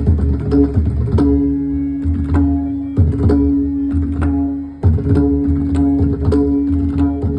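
Pakhawaj (barrel drum) being played: a run of sharp strokes, some left ringing on a steady pitch, over deep bass strokes, as a sound check of the drum.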